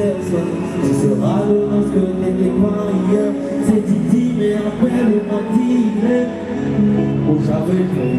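A male singer singing live into a microphone over backing music with steady held chords.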